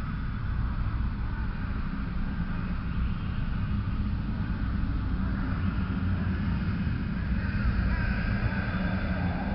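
Steady low rumbling drone with a fainter hiss and a few thin wavering tones above it, an ominous ambient sound bed.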